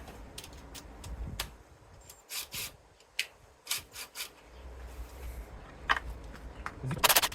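A series of short, uneven scrapes and rubs from hand work on engine parts, with the loudest cluster near the end.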